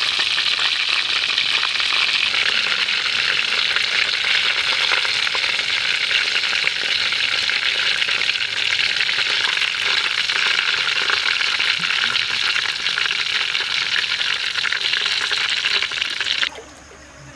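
Chicken drumsticks deep-frying in hot oil in a wok: a dense, steady sizzling with fine crackle, cutting off suddenly near the end.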